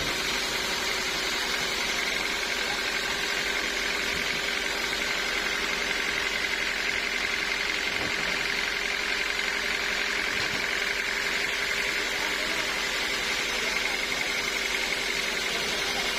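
Sawmill machinery running steadily with a constant hum and a high whine that never changes.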